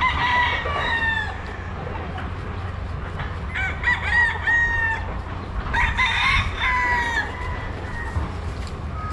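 Gamecocks (fighting roosters) crowing, three long crows one after another, each ending on a falling note.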